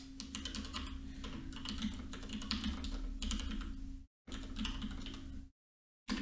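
Typing on a computer keyboard: quick runs of keystroke clicks over a low steady hum. The sound cuts out to silence twice, briefly just after four seconds in and for about half a second near the end.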